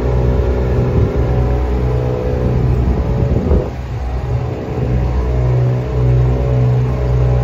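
Diesel engine of a Scania S500 refrigerated truck running steadily at idle, with a short rise and fall in pitch about three and a half seconds in.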